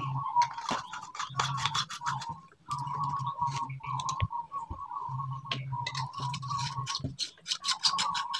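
Screw-in light bulbs being twisted into plastic lamp holders: the metal base threads scrape and click in quick runs, bulb after bulb. A hum comes and goes behind them.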